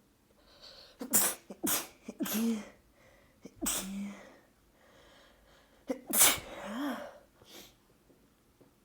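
A person sneezing several times in quick succession, with short voiced gasps between the sneezes; the loudest sneeze comes about six seconds in. The sneezing fit is what the sneezer suspects is the start of a new cold.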